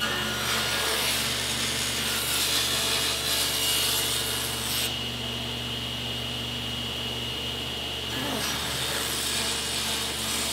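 Table saw running with a steady motor hum, its blade ripping thin strips of bead molding in half lengthwise. Two cuts are heard: the first from about half a second in to about five seconds, the second starting about eight seconds in.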